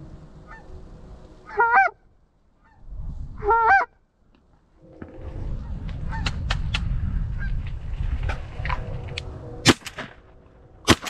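Two loud bursts of Canada goose honking, then a stretch of wind noise on the microphone, then two 12-gauge shotgun blasts about a second apart near the end, fired at decoying geese.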